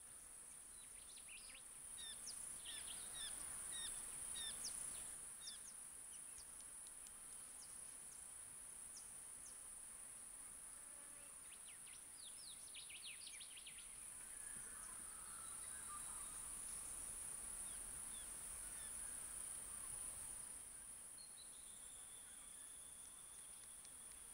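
Faint rural outdoor ambience: a steady, high-pitched insect drone throughout, with clusters of short bird chirps a couple of seconds in and again around twelve seconds in. A second, lower steady whine joins near the end.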